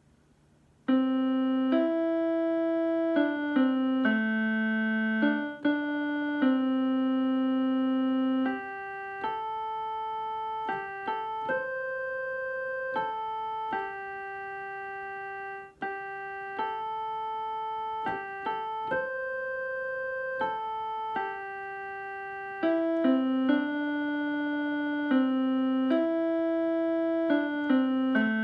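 Electronic keyboard playing a slow tune in evenly held, sustained notes, with about a second of near silence before it begins.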